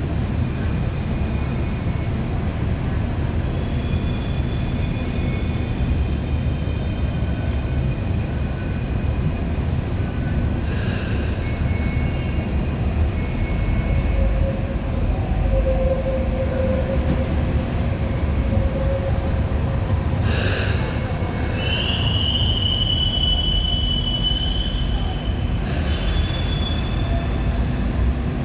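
MTR Light Rail Phase I car running, with a steady low rumble from the wheels and motors. A sharp knock comes about twenty seconds in, then a high-pitched wheel squeal for a few seconds.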